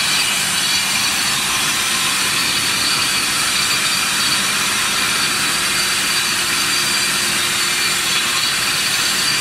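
Single-phase 250 concrete floor grinder running steadily under load as it grinds a concrete floor: a constant rushing noise with a steady high whine and a lower hum.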